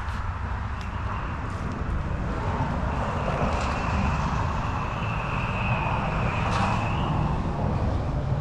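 A distant engine passing: a steady hum with a faint high whine that swells about halfway through and fades near the end.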